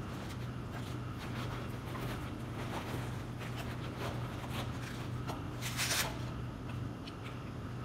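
Rustling and light knocks of luggage being handled, with one brief louder rustle about six seconds in, over a steady low hum.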